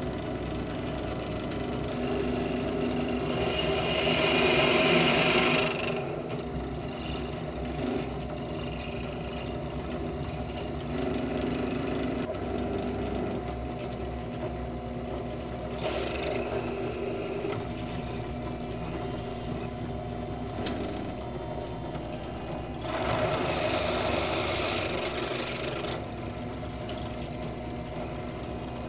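WEN 4208 benchtop drill press running steadily with a 7/32-inch cobalt bit cutting into the metal case of a lower ball joint, widening the hole to tap-drill size for a 1/4-28 grease fitting. The cutting gets louder about two seconds in, briefly in the middle, and again about three-quarters of the way through.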